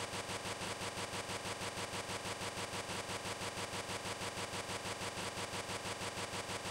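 A steady, engine-like mechanical drone with an even beat several times a second.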